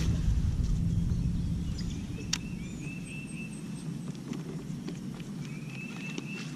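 A cast with a baitcasting rod from a kayak: a sharp click as the cast goes out, a second or two of low handling rumble, and a sharp knock about two seconds in. Then the topwater popper is worked back on the reel with faint ticks. A bird repeats short chirping phrases several times.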